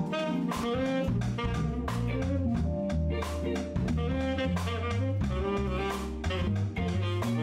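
A small jazz band playing live: a saxophone leads the melody over drum kit, keyboard and electric bass, with steady cymbal and drum strikes.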